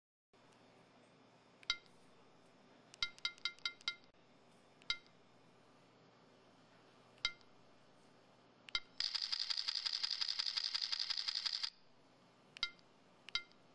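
Samsung SCH-V330 mobile phone sounding short electronic key beeps: single beeps, a quick group of five, then a fast run of repeated beeps for nearly three seconds, and two more beeps near the end.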